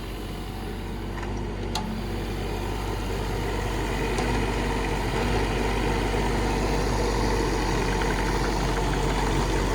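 Kubota K008-3 mini excavator's small three-cylinder diesel engine running steadily, gradually growing louder.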